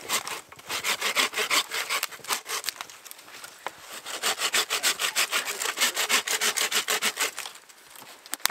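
Hand bow saw cutting through a branch with quick back-and-forth strokes, in two runs with a brief lighter pause between. The sawing stops over a second before the end, and a single sharp click follows near the end.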